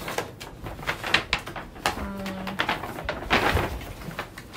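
Paper shopping bag rustling and crinkling as clothes are pulled out of it, in a string of short, irregular crackles.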